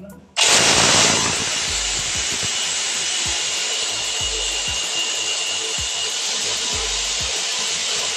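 Electric hammer drill boring into a ceramic-tiled wall: it starts suddenly about half a second in, is loudest for the first second, then runs steadily with a faint high whine.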